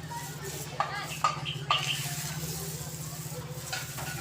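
Three sharp metallic clinks, each with a brief ring, come in quick succession about a second in, over a steady low machine-like hum.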